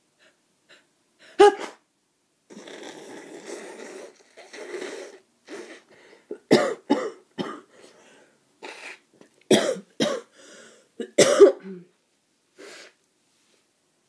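A person with a cold coughing: about eight short, sharp coughs, some single and some in quick pairs, with a stretch of rough breathing between the first cough and the rest.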